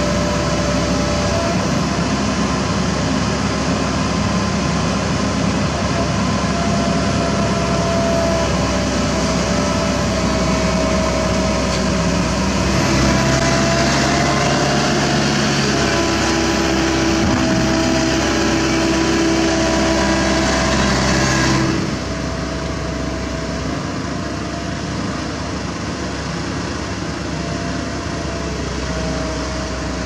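Komatsu PC195LC excavator's diesel engine running steadily while it digs. It works harder and louder from about halfway in, then drops back suddenly about three-quarters of the way through.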